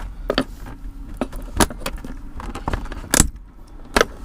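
A 2017 Corvette Stingray's unscrewed centre-console armrest being worked loose and lifted out: a handful of sharp plastic clicks and knocks spread over a few seconds.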